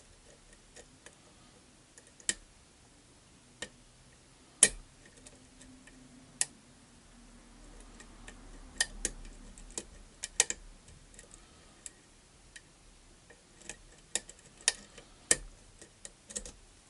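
Sharp, irregular metallic clicks and snaps of a lock pick working the pins inside a challenge lock, scattered a second or two apart and sometimes in quick pairs: the "snap, crackle, and popping" of the pins.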